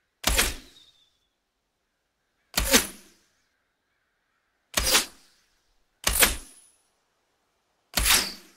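Five arrow fly-bys, each a short, sharp whoosh past the listener that dies away within about half a second, spaced a second or two apart.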